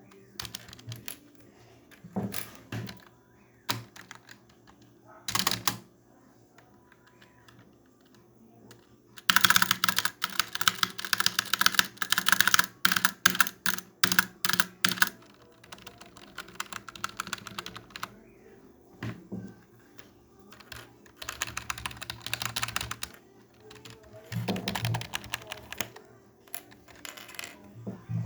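Typing on a membrane keyboard, in bursts: a few scattered key presses, then a long fast run of typing about nine seconds in lasting around six seconds, followed by several shorter bursts of rapid keystrokes.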